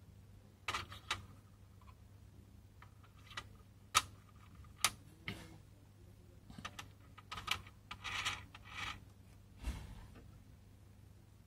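Plastic clock gears clicking and clattering as they are picked up and fitted onto the posts of a clear plastic clock case: a string of irregular sharp clicks with a few short rattles.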